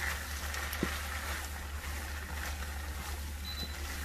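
A spatula stirring bow-tie pasta and Alfredo sauce in a pan over low heat, with faint sizzling over a steady low hum.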